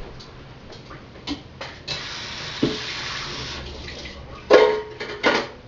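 A kitchen tap runs for about two seconds, then several sharp knocks and clatters near the end.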